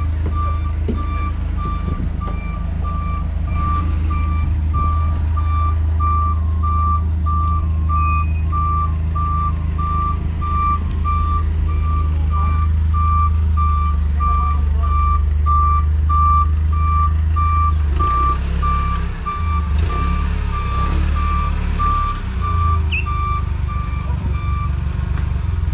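Electronic warning beeper on a forklift rig, about two even beeps a second, over the steady running of a propane-fuelled Komatsu forklift engine; the beeping stops near the end. The beeper is either the forklift's reversing alarm or the vacuum glass lifter's alarm, which warns that a suction cup could let go.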